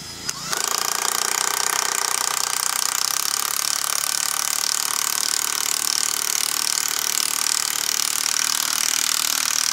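Cordless impact driver driving a lag bolt with a washer into a wooden step frame: a loud, rapid hammering rattle that starts about half a second in and runs on without a break.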